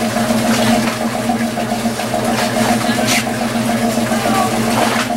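An engine idling with a steady, even hum, with scattered light knocks and faint voices over it.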